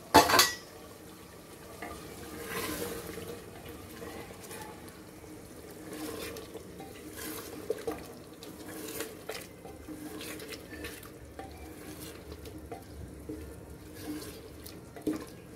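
Wooden spatula stirring pieces of beef liver through a thick, wet masala in an aluminium pressure cooker pot: a wet, squelching stir with scattered light knocks and scrapes against the pot. A sharp knock just at the start.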